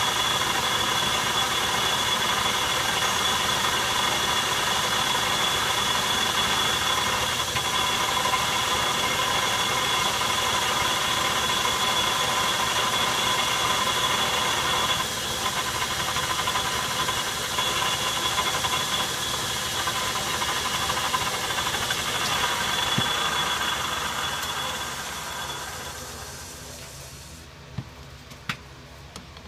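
Metal lathe running with its chuck spinning a steel workpiece: a steady mechanical whine with high ringing tones, dropping slightly in level about halfway through. Near the end the lathe is switched off and winds down to a stop, followed by a few light clicks.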